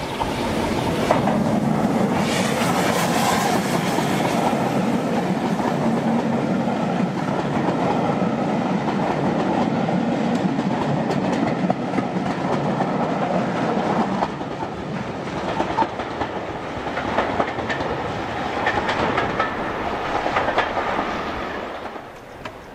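Steam-hauled passenger train passing close below, loudest in the first few seconds, then the coaches' wheels clicking over the rail joints as the train runs away; the sound drops shortly before the end.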